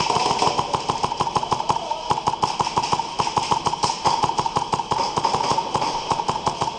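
Airsoft gunfire from HPA-powered guns, including an MP5 replica: rapid strings of sharp snapping shots, several a second, going on without a break.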